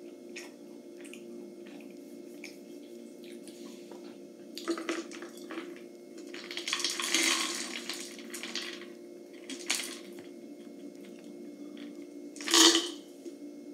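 Peanuts rattling and sliding inside a clear plastic jar as it is tipped to pour them into its plastic lid. There is a longer rattle in the middle and a short, loud clatter near the end as the nuts spill into the lid.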